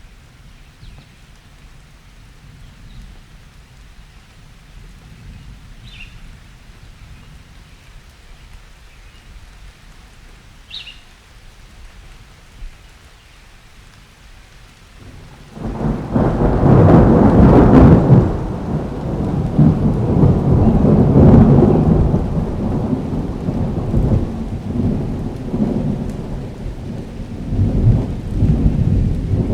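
Thunderstorm with rain: a low distant rumble of thunder for the first half, with a couple of faint high chirps, then about halfway a sudden loud thunderclap that rolls on and keeps rumbling, swelling again near the end.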